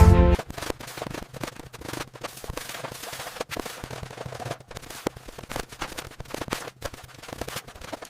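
Dense, irregular crackling and popping, many small sharp snaps in quick succession, in a break between stretches of music.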